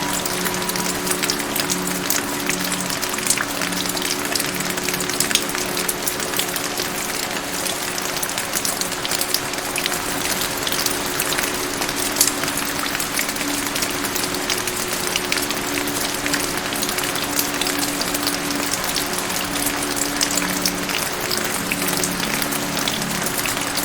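Steady rain, an even hiss of falling rain with countless individual drops ticking on a surface. Under it a soft music background of slow, held low notes.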